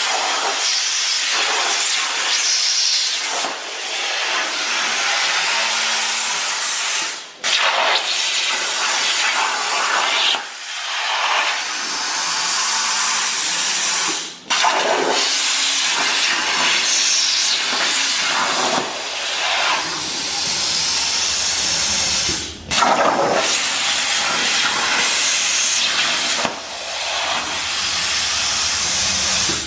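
A CNC plasma cutter's torch cutting aluminum sheet: a loud, steady hiss of the arc and cutting air that cuts off and restarts several times as the torch moves between cuts.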